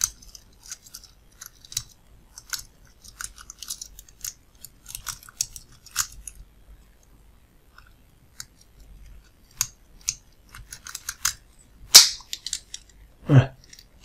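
Small metallic clicks and scratchy scrapes of a half-diamond lock pick working the pins of a cheap Chinese padlock held under a tension wrench, with a louder sharp click about twelve seconds in as the lock gives and the shackle opens.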